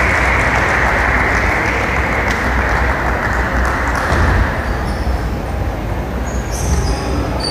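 Crowd applause in a sports hall, fading over the first few seconds into a steady crowd murmur, with a few faint sharp ticks of a table tennis ball.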